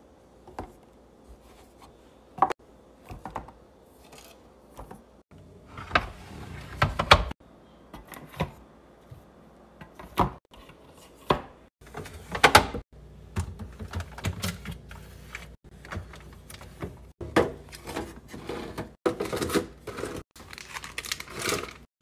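Irregular clacks and knocks of clear plastic containers and produce being set onto fridge shelves and into bins, with some crinkling of packaging, broken here and there by brief dead silences.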